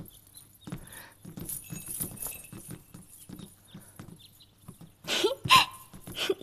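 Horse hooves clip-clopping, about three beats a second, with a louder, sharper burst of sound about five seconds in.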